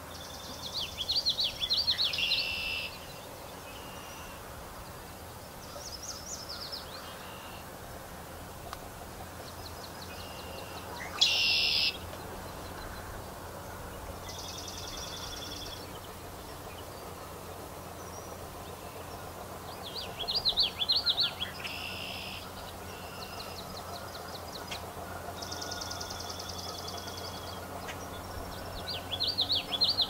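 Tree swallow twittering: bursts of high, quick chirps and short trills every few seconds, over a steady low background hum.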